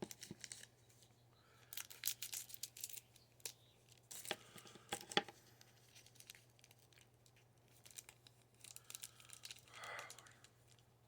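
Faint crinkling and tearing of a trading-card pack's wrapper as cards are handled, in several short bursts.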